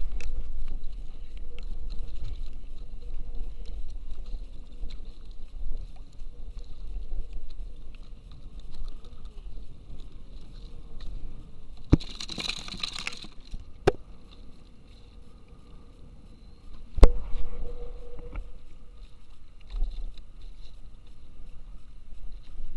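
Wind rumbling on the microphone and water lapping at a fishing kayak, with a few sharp knocks and clicks from handling gear and a short rustle about halfway through.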